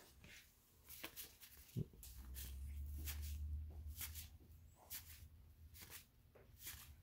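Faint swishes of paper baseball cards being slid one at a time off the front of a stack, roughly one every half second to a second. A soft thump comes a little before two seconds in, and a low rumble runs through the middle.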